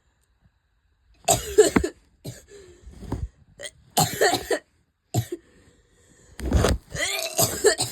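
A person in a coughing fit: after about a second of quiet, a run of harsh coughs comes in several short bouts, the longest and loudest near the end.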